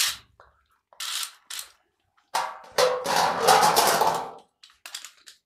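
Plastic Beyblade launcher clicking as it is handled, then a knock-off Metal series Beyblade ripped off the launcher with its ripcord about two seconds in and spinning and scraping on the stadium dish for about two seconds, the loudest part.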